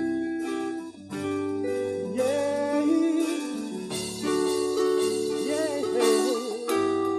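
A live gospel band playing: electric bass and keyboard holding sustained chords, with a wavering sung line over them.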